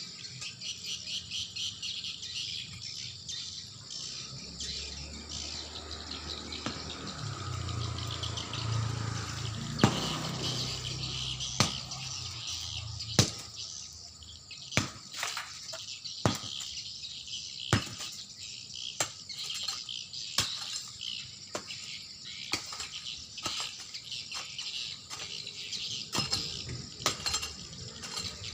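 Insects chirring steadily with a fast pulsing trill. A low hum passes under it in the first half, and from about a third of the way in come sharp knocks, roughly one a second, like a tool striking.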